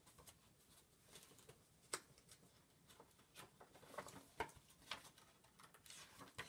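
Faint paper rustling and a few soft, scattered clicks as a hardcover picture book is handled and its page turned.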